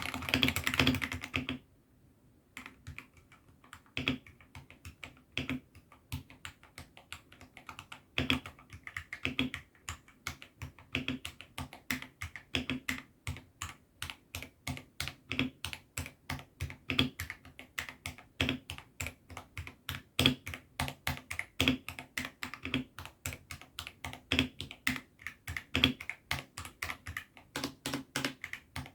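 Typing on a 68-key hot-swappable mechanical keyboard fitted with AKKO Sakura linear switches. A fast run of keystrokes breaks off for a brief pause about two seconds in, then steady typing resumes, with a heavier keystroke about every second and a half.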